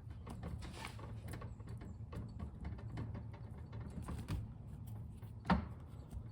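Faint irregular scraping and clicking of a tire plug kit's reamer being worked into a pinhole leak in a riding mower tire, with one louder knock about five and a half seconds in.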